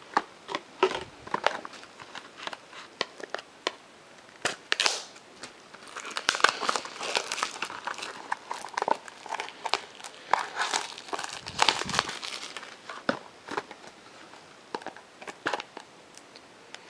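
Plastic wrapping on a sealed trading-card box crinkling and tearing as it is unwrapped. Scattered crackles and clicks, busiest in the middle.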